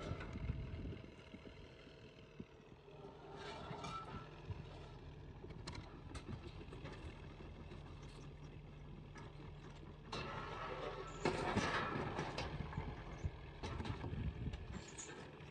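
An engine running steadily, with louder rough noise about three seconds in and again from about ten to thirteen seconds in.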